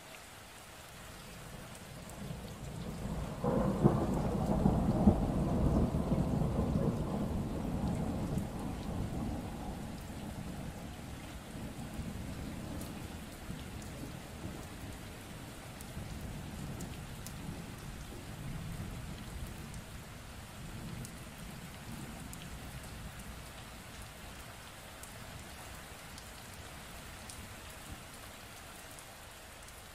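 Steady rain with one clap of thunder about three and a half seconds in. It starts suddenly, is loudest over the next few seconds, then rumbles on and slowly dies away over the next twenty seconds or so.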